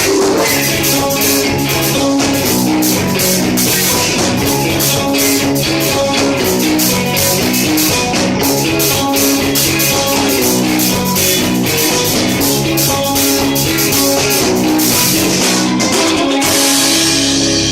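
Rock band playing live: drum kit with busy cymbal strokes over sustained electric guitar chords. Near the end the cymbals stop and a low held note rings on.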